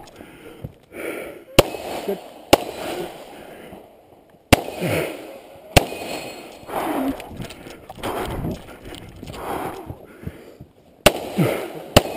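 Pistol shots fired singly, six in all and irregularly spaced: two about a second apart, two more about two seconds later, then a pause of several seconds before the last two, close together near the end.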